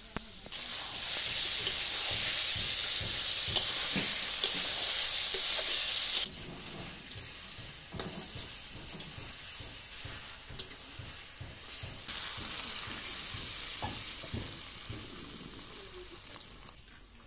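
Brinjal and rohu fish pieces sizzling in hot oil in a metal wok, loud for the first six seconds and then cutting off suddenly. After that a quieter sizzle goes on, with the spatula scraping and clicking against the pan, and the sizzle swells again for a couple of seconds later on.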